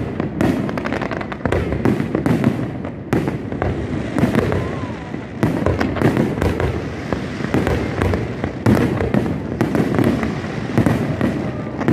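Aerial fireworks shells bursting overhead: a dense, irregular run of bangs, several each second, overlapping with a continuous rumble between them.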